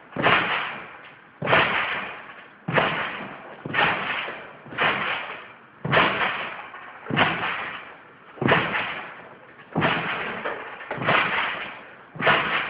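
A steady series of sharp thumps, about one every 1.2 seconds, each followed by a rushing fade.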